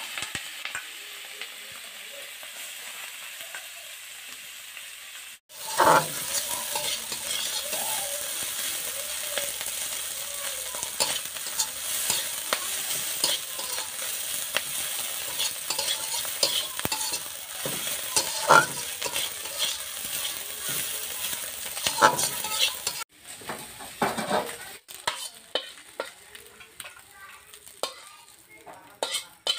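Dried kachki fish with onion and green chilli sizzling in hot oil in a metal karai, with a metal spatula stirring and scraping against the pan. Near the end the sizzle is fainter and the spatula scrapes and clinks on the nearly empty wok.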